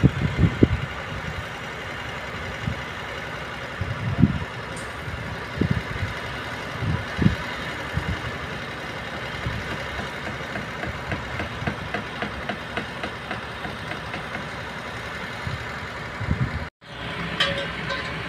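Diesel engines of a concrete mixer truck and a trailer-mounted concrete pump running steadily, with occasional low thuds and a faint fast ticking. The sound cuts out for a moment near the end, followed by a few sharp clicks.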